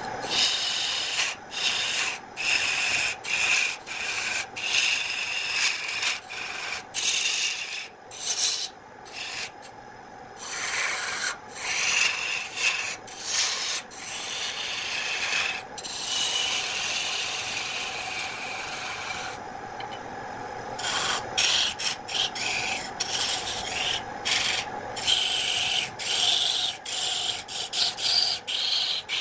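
Electric wood lathe running with a steady hum while a hand-held gouge cuts the spinning wood blank, in repeated bursts of rough scraping and hissing shavings broken by short pauses. About halfway through, one cut runs unbroken for about three seconds.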